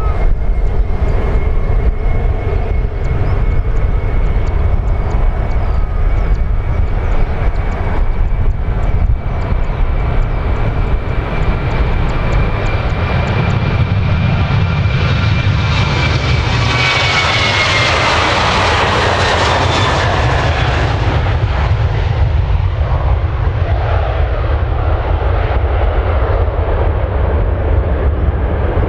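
Boeing 737-800 airliner's CFM56 turbofan engines at takeoff power on the takeoff roll: a steady whine over a low rumble that swells into a loud rush as the jet passes close by about two-thirds of the way through, then drops in pitch and thins to a deep rumble as it climbs away.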